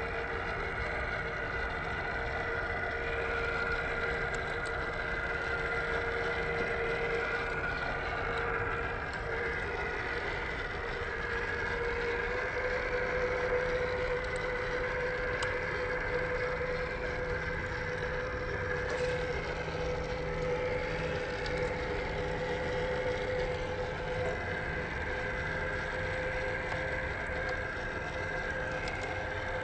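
Electric motor and gearbox of a 1/10 scale Boom Racing BRX02 RC crawler whining steadily as it drives, the pitch stepping up slightly about twelve seconds in.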